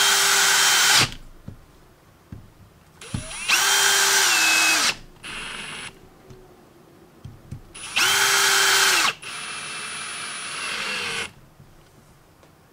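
Green Ryobi cordless drill driving screws into the nose of a Ryobi P263 impact driver during reassembly. There are three full-speed runs of about a second each, every one spinning up and winding down, with softer, slower runs between them as the screws seat.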